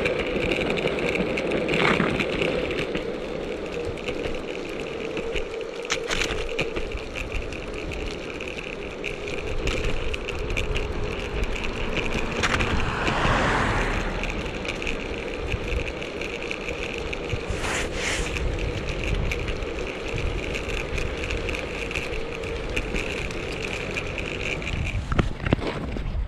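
Mountainboard's large all-terrain wheels rolling over asphalt: a steady rolling rumble with a constant whine, and a few sharp clicks along the way.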